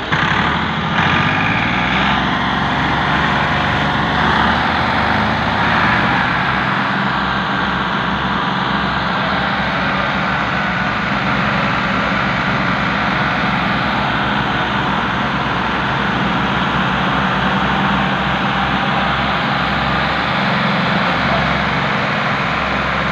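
Two Ford three-cylinder diesel tractors, a 3600 and a second Ford coupled in front of it, running hard under heavy load as they drag a loaded trolley through soft ploughed soil. The engines rev up about half a second in and then hold a steady, labouring note.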